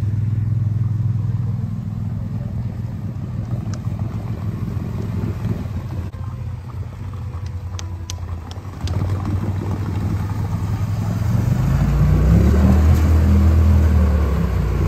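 ATV engine running steadily at low revs, then revving up with a rise in pitch about eleven seconds in as the quad pulls away through deep muddy water, easing off near the end.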